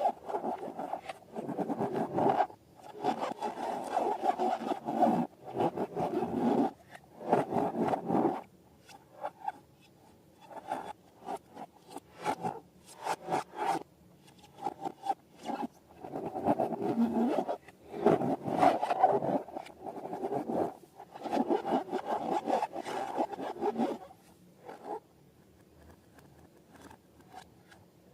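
Slime and rubber balloons being worked by hand: bursts of rubbing and scraping with crackly strokes that start and stop every second or two, dying down near the end.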